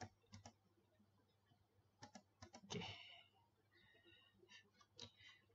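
Faint computer keyboard keystrokes and mouse clicks, a few scattered clicks in small clusters with near silence between them.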